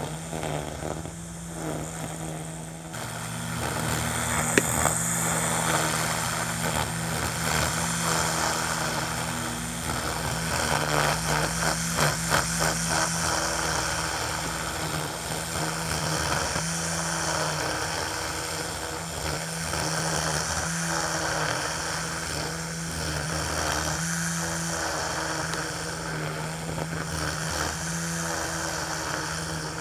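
Ryobi 40V battery string trimmer running with its spinning line cutting through tall, overgrown centipede grass: a steady motor hum under the hiss and swish of the line in the grass, getting louder about three seconds in.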